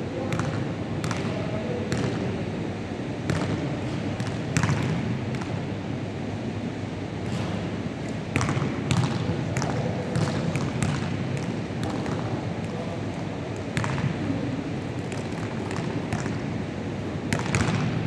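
Basketballs bouncing on a wooden gym floor: irregular sharp thuds, a few close together, echoing in the large hall over a steady low background rumble.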